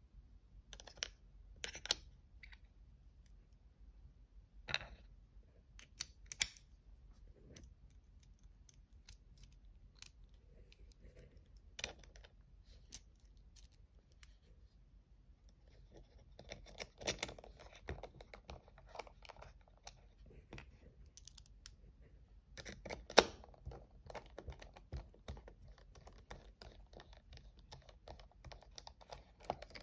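Small metal clicks and taps of screws, back spacers and a hand driver being handled and fitted into a Demko AD20 folding knife's carbon fiber handle during reassembly. The clicks are scattered at first, then come in denser runs of rapid clicking about halfway through and again near the end.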